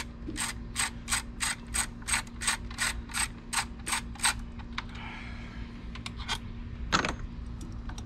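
Hand ratchet wrench clicking in an even rhythm, about three clicks a second, as it is worked back and forth to loosen a fastener; the clicking stops about four seconds in. One louder sharp click follows near the end.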